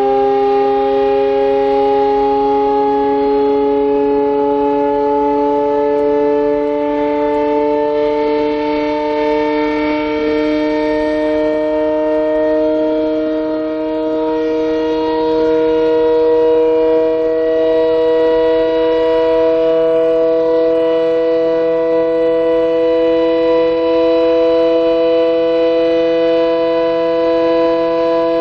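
Vintage WWII air-raid siren sounding a loud, sustained wail that creeps slowly and steadily upward in pitch.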